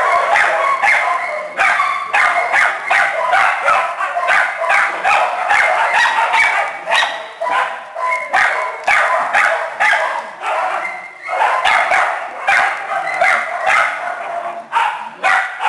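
Several small dogs and puppies barking and yapping over one another in a dense, unbroken chorus.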